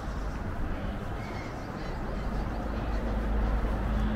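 Outdoor street ambience: a low steady rumble with a distant vehicle's engine hum that grows slightly louder near the end, and a few faint bird calls.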